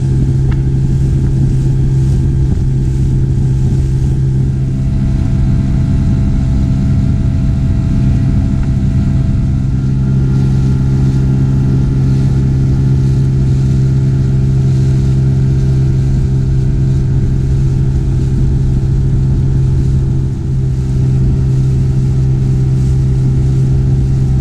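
Outboard motor of a small inflatable boat running at a steady cruising speed, one even engine note over the rush of wind and water, dipping briefly about twenty seconds in.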